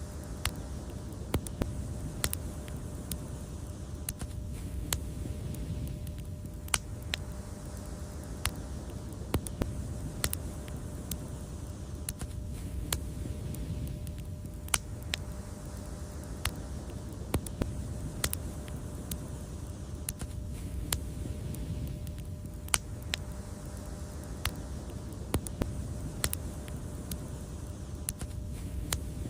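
Wood fire crackling: irregular sharp pops and snaps, several a second at times, over a steady low rumble of the flames.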